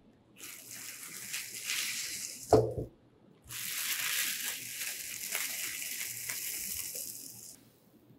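Plastic bubble wrap crinkling and rustling as it is pulled off and crumpled from a bow riser, in two stretches, with a single thump about two and a half seconds in.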